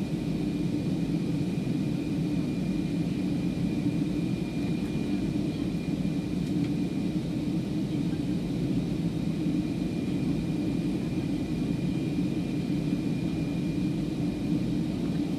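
Steady cabin noise of a jet airliner in flight: an even rumble of engines and airflow with a faint high whine over it.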